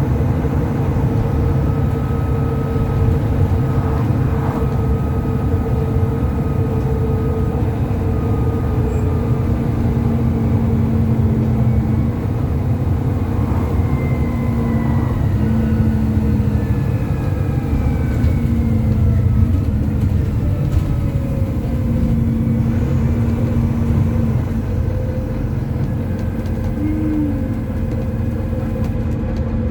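Volvo B9TL double-decker bus's six-cylinder diesel engine and drivetrain heard from on board while under way: a steady low rumble with a whine that shifts up and down in pitch with the revs.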